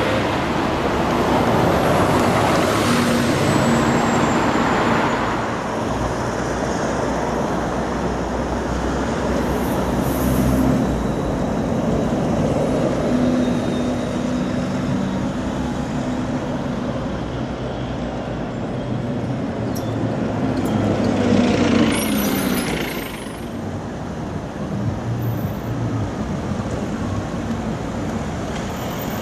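City buses driving past in street traffic, their engines and tyres swelling as they pass, loudest about two to four seconds in and again around twenty-two seconds in. A falling high whine comes from a passing vehicle in the first few seconds.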